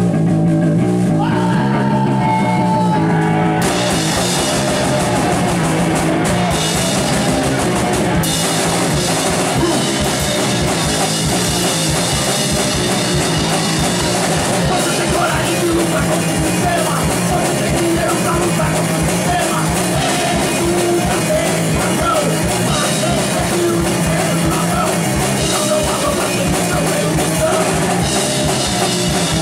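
A rock band playing live through a club PA: electric guitars and bass open the riff alone, and the drum kit with crashing cymbals comes in about four seconds in, the full band then playing on at full volume.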